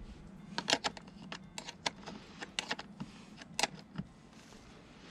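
Irregular sharp clicks and light clatter of small hard parts or tools being handled, about a dozen in a few seconds.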